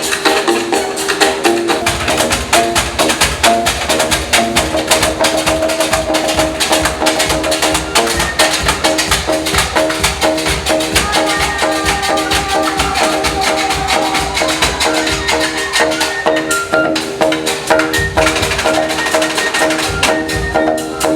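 Percussion-led music: short pitched notes repeating in a pattern over a dense, steady beat, with a low bass pulse coming in about two seconds in.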